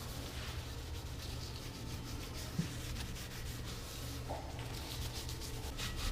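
A cloth rubbing over an aluminum alloy wheel, wiping it down with mineral spirits to take off the last sanding dust before paint: repeated swishing strokes, with several quicker strokes near the end, over a steady low hum.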